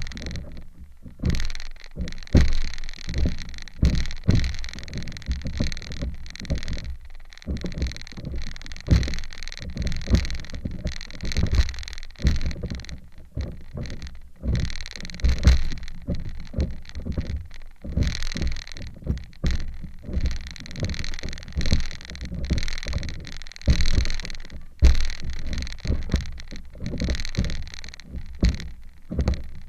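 Lake water slapping and splashing against the nose of a stand-up paddleboard right at the camera, with uneven low thumps as the board meets small waves.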